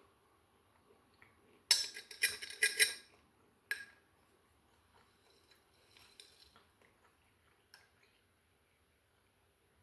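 Spoon clinking and scraping in a jar of dry oats: a quick flurry of clattering about two seconds in, one sharp clink a second later, then a few faint clicks.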